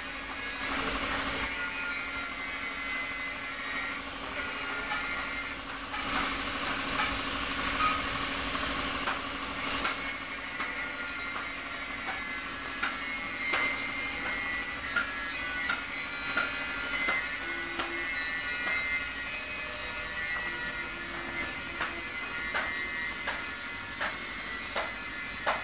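Gravity-feed compressed-air spray gun hissing in bursts as paint is sprayed through a stencil, over a steady low hum. From about halfway on, the hissing gives way to scattered clicks and taps.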